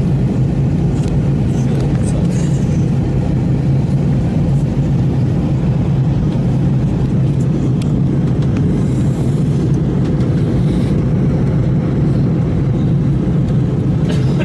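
Steady airliner cabin noise during descent: a constant low drone of jet engines and airflow, with no change in level.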